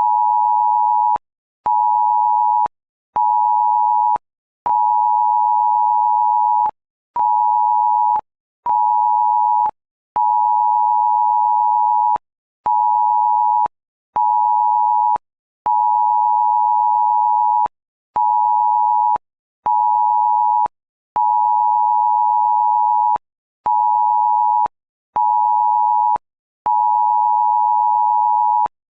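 Cell broadcast emergency alert tone: a mix of 853 Hz and 960 Hz tones in a repeating pattern of one 2-second tone followed by two 1-second tones, each separated by a half-second gap, with a faint click at each start and stop. It is a synthesized imitation of the phone alert signal.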